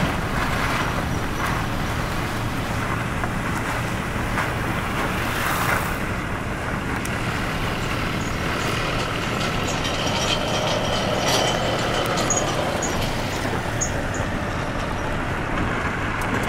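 Steady engine and road noise of a moving vehicle, heard from inside the cab.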